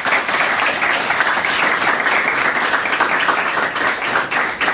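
Audience applauding: many hands clapping together in a dense, even stream at a steady level.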